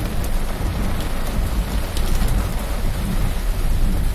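Heavy rain falling on a car's roof and windshield, heard from inside the cabin, with a steady low rumble under it and faint scattered drop ticks.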